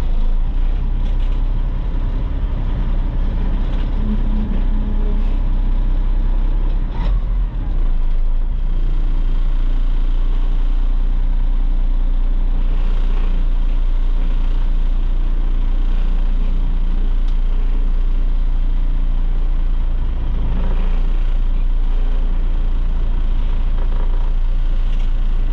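Truck engine running steadily while it tows a trailer at low speed, with a brief dip in level about seven seconds in.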